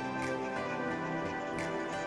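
Background music: gentle, sustained instrumental chords.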